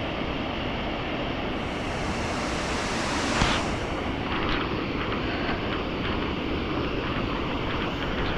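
Steady rushing of Dynjandi waterfall's falling water, mixed with wind noise on the microphone. A brief louder gust or knock comes about three and a half seconds in.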